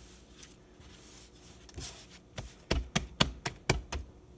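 Hands patting and tucking a wet loaf of bread dough into shape on a floured countertop: soft handling, then about seven quick taps in the second half.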